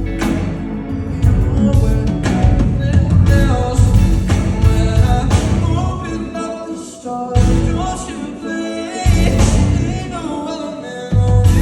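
A live pop song played by a band, with a lead singer over keys, bass and drums. The bass and low end drop out briefly twice in the second half.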